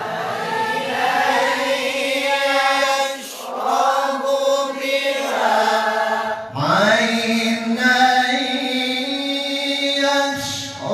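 A man reciting the Quran in the melodic mujawwad style, holding long ornamented notes in three phrases with short breaths about three and six and a half seconds in; the third phrase slides up into a higher held note.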